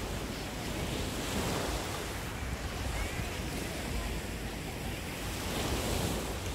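Small waves washing onto a sandy beach, a steady surf noise that swells and eases, with wind buffeting the microphone.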